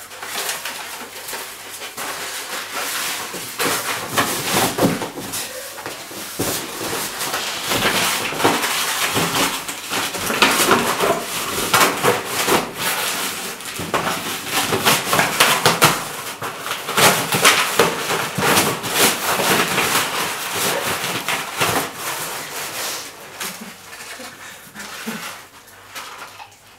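Gift-wrapping paper and a cardboard box crackling, rustling and tearing as a dog rips into the present with its mouth. The crinkling is dense and busy for most of the stretch and dies down near the end.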